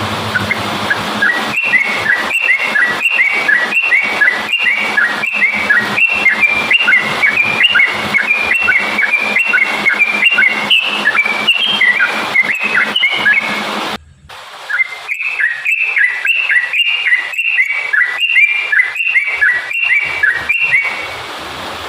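Yellow-vented bulbul (trucukan) singing a long run of quick, bubbly whistled notes. The song breaks off abruptly about two thirds of the way through and starts again half a second later, with the low background hum gone after the break.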